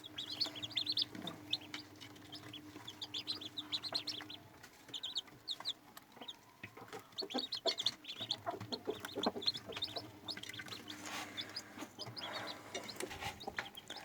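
Four-day-old chicks peeping continually: many short, high cheeps from several birds at once.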